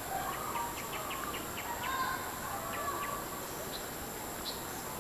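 Birds chirping and calling outdoors, with a quick run of ticks early on and a steady high-pitched drone underneath, typical of insects.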